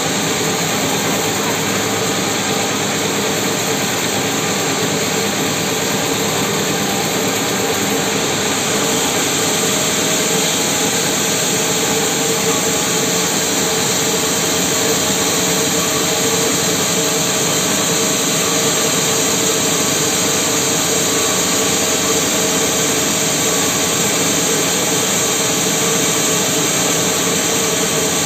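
Large band sawmill running and sawing lengthwise through a mahogany log: a loud, steady machine-and-blade noise that turns brighter about eight seconds in.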